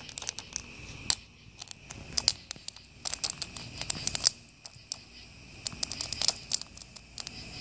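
Popcorn kernels popping inside a foil stovetop popcorn pan on a wood fire, mixed with the crackle of the burning firewood: irregular sharp pops, several a second.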